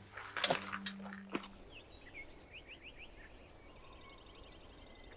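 A few short noises in the first second and a half, then birds chirping: a series of quick, repeated chirps that runs to the end.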